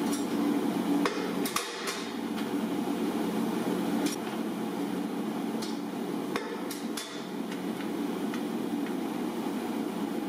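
Sheet-metal stretching machine working the flange of a fender panel: irregular sharp metallic clacks as the jaws bite and stretch the edge to deepen its curve, over a steady low hum.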